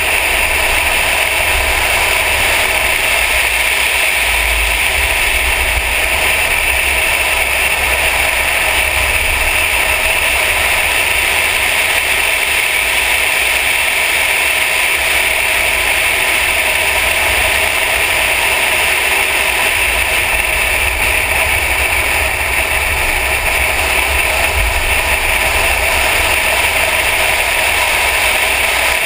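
Mercedes AMG car driving at a steady speed, heard from a camera on its hood: a loud, unchanging drone of engine, tyres and wind with a low rumble, and no revving or gear changes.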